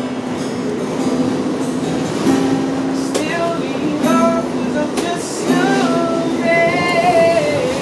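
A busker singing and playing an acoustic guitar inside a subway car, with the train's steady rumble underneath.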